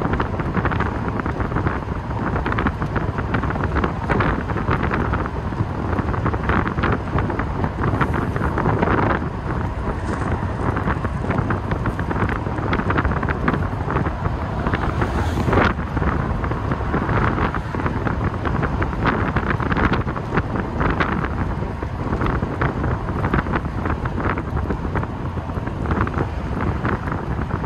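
Wind rushing over the microphone in the open cockpit of a V8 TVR on the move, with the engine and road noise running steadily beneath it.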